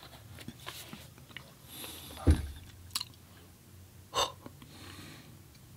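A person eating close to the microphone: quiet chewing with wet mouth clicks and soft breaths, and one louder low sound about two seconds in.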